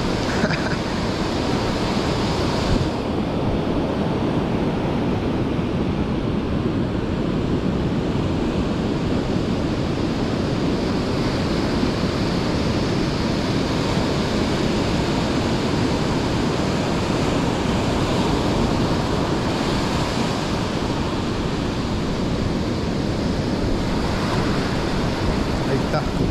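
Steady rush of ocean surf breaking on a beach, with wind buffeting the microphone.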